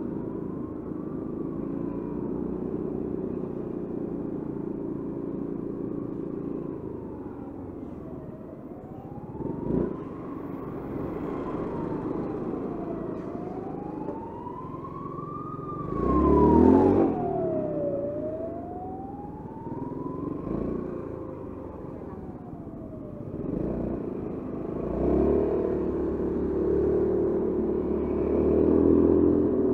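An emergency-vehicle siren wailing, its pitch sliding slowly up and down about every five seconds, over the steady running of a Honda Forza 350 scooter's single-cylinder engine. A brief louder burst comes just past halfway, and the engine picks up near the end.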